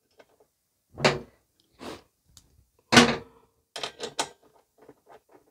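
Metal hand tools knocking against a Briggs & Stratton lawn mower engine as a spark plug socket is fitted over a freshly hand-threaded spark plug. Three separate knocks are followed by a quick cluster of clicks about four seconds in, then a run of fainter ticks as the plug is turned in.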